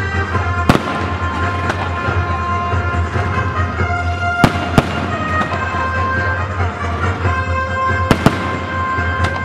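Fireworks going off: a continuous crackle with six sharp bangs, two of them in quick pairs near the middle and near the end, over music playing with held notes.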